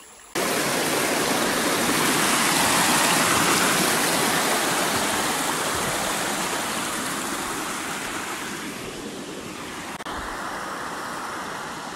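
Creek water rushing steadily, a full, even rush that slowly fades over the second half as the recording moves away from it.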